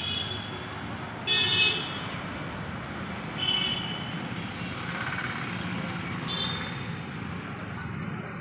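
Steady low hum of the backhoe loader's diesel engine running. Over it come three short, high horn toots, the loudest about a second in, the others around three and a half and six seconds in.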